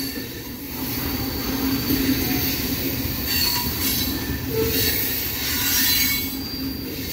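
Freight cars of a CSX manifest train rolling past close by: a steady rolling rumble of steel wheels on rail, with thin steady tones running through it.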